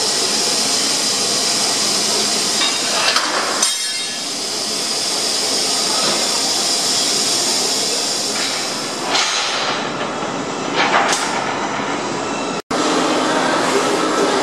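Automatic circular sawing machine for metal bar running with a steady hiss, with a few short knocks of its loading and feed system.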